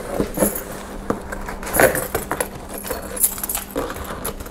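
Foam packing peanuts and cardboard rustling and squeaking as hands dig through a box full of packing material, in irregular scratchy crackles and clicks.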